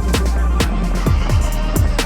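Electronic background music with a deep kick drum that drops in pitch on each beat, crisp hi-hat ticks and a steady bass.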